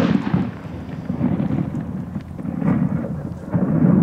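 Low rolling rumble and echo after a firework bomb's bang, dying away and swelling again a couple of times.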